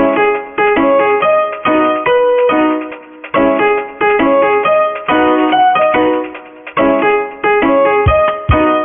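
Background piano music: repeated chords and notes played in a steady rhythm.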